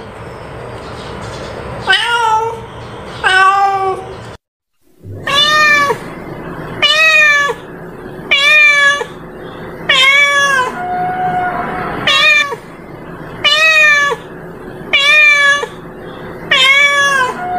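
Domestic cat meowing repeatedly: short meows about every one and a half seconds, each rising and then falling in pitch. A brief half-second drop-out about four and a half seconds in.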